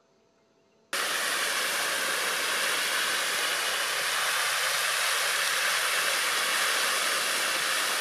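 A steady, even hiss that starts suddenly about a second in, strongest in the high range.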